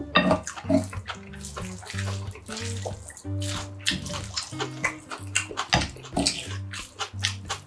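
Close-miked wet chewing and mouth smacking of a mouthful of spicy sea squirt rice bowl, with clicks of a wooden spoon scooping in the bowl, over light background music with a repeating bass line.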